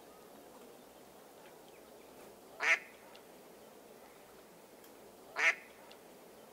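Two loud duck quacks, one about a third of the way in and one near the end, over a faint steady outdoor background.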